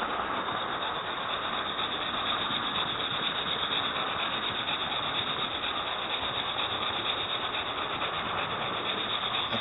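Model railway train running steadily along the track, its small electric motor and wheels making a continuous whirr, heard close up from a mini webcam riding in a wagon on the train.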